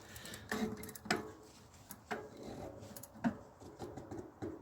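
Light metallic clinks and knocks, about half a dozen spread through, some with a short ring, from a bicycle cassette's steel sprockets being handled and fitted onto the rear hub.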